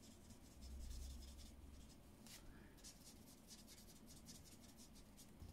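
Faint scratching of a marker tip on paper in quick short strokes as a small stamped image is coloured in, with a soft low rumble about a second in.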